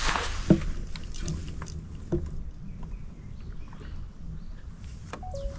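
Knocks and clicks of handling on a fishing kayak over a steady low rumble, with a brief two-note tone near the end.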